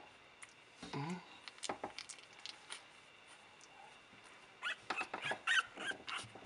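A newborn Boston Terrier puppy gives a run of high, thin squeaks in the last couple of seconds. Soft clicks and rustles of handling on a fleece blanket come before them.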